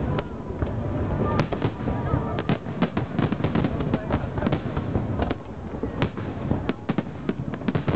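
Aerial firework shells bursting in quick succession: a dense, unbroken barrage of bangs and sharp reports over a continuous low rumble.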